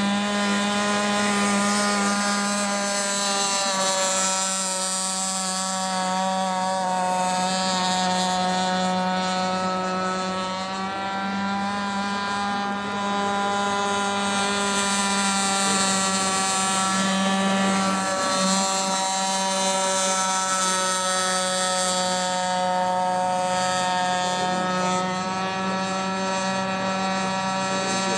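Small two-stroke petrol engine of a radio-controlled F1 outboard racing boat running flat out with a steady high-pitched buzz, its pitch wavering slightly and dipping briefly a couple of times around the middle.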